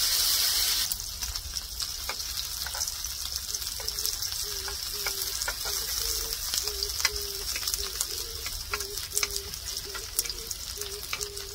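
Slices of pork belly sizzling in fat on a round griddle pan over a portable gas stove, with sharp crackles and clicks as the meat spits and is turned with tongs.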